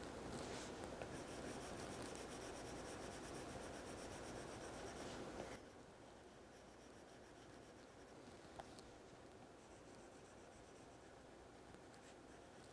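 Stylus tip scratching and rubbing across a tablet's glass screen during shading strokes. It grows fainter about halfway through, and there is a single light tap later.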